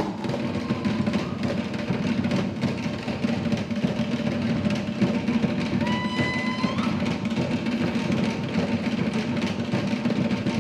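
Fast, driving drumming of island-style dance music, dense and even. About six seconds in, a short held high tone slides upward over the drums.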